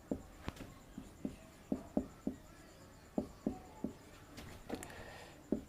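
Writing by hand: a string of short, irregular pen strokes and taps.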